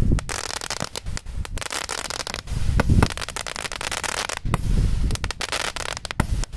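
Small 'gnome' ground firework going off: a hissing spray of sparks with dense, continuous crackling and scattered sharper pops.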